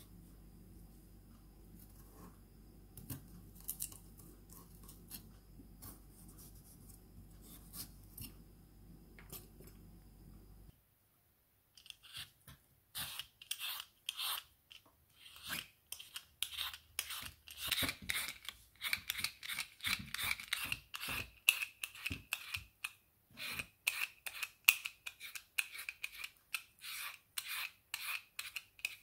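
A knife slicing through green papaya on a wooden board, faint against a low hum. From about halfway in, a vegetable peeler rasps the skin off a green papaya in quick, repeated scraping strokes, much louder.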